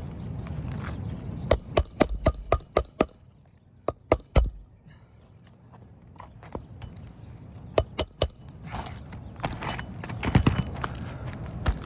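Hammer striking nails in a roof shingle: a quick run of about six sharp, ringing blows, two more a second later, then three or four more, followed by softer knocks and rustling.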